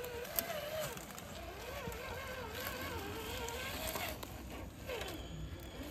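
Traxxas TRX-4 RC crawler's stock brushed electric motor and gearbox whining as it crawls, the pitch wavering up and down with the throttle and sliding down a little past four seconds in.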